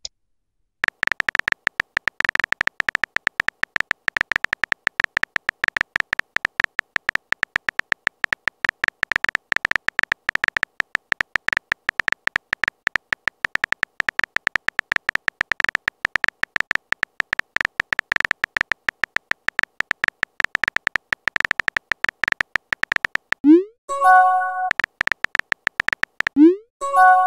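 Texting-app sound effects: a rapid run of keyboard tap clicks as a message is typed out. Near the end comes a short rising whoosh and a chime as a message is sent, twice.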